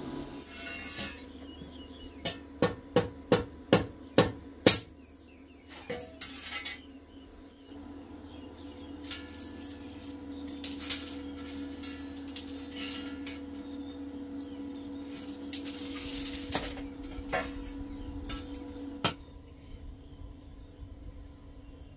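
Steel square-tube door frame pieces clinking and being tapped: a quick, even run of about seven sharp metallic taps a couple of seconds in, then scattered clinks over a steady hum.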